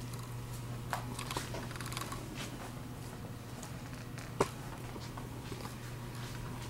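Quiet classroom room tone: a steady low hum with faint scattered clicks and rustles, and one sharper click about four seconds in.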